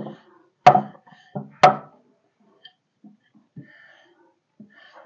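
Three sharp knocks about a second apart in the first two seconds, from shawarma flatbread dough being handled and shaped, then a few faint soft taps.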